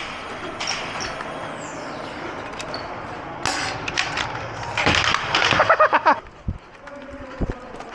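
Indistinct shouting from people some way off, loudest for about a second and a half past the middle, over a steady background noise with scattered clicks and knocks.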